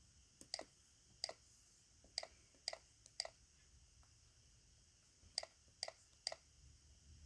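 Keys on a Razer keyboard pressed one at a time while checking which keys still work: eight short, sharp clicks, five in the first three seconds or so, then a pause of about two seconds, then three more in quick succession.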